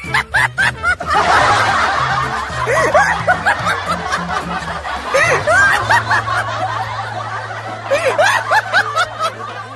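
Several people laughing and shrieking at once, over background music with a low bass line.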